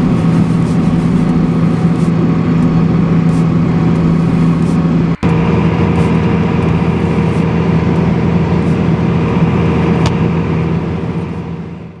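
Six-cylinder 7.1-litre Deutz diesel engine of a Deutz-Fahr Agrotron tractor running steadily as it pushes a snowplow blade. The sound drops out briefly about five seconds in and fades out near the end.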